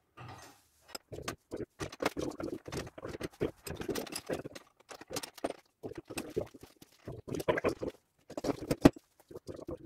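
Irregular clicking and knocking of metal hitch-bracket parts, bolts and hand tools being handled, with a sharp louder knock near the end.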